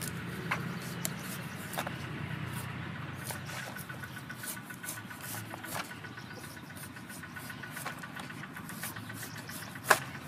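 Cleaver slicing the skin off a taro root: scattered crisp cuts and scrapes, the sharpest one near the end. Behind them is a steady low hum, with a fast, even ticking joining in about a third of the way through.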